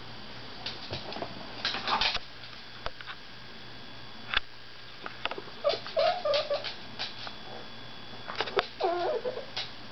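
Jack Russell terrier whining with short, bending, pitched whimpers, in two bouts about halfway through and near the end, with rustles and light knocks from the dog shifting on the blanket in its plastic bed.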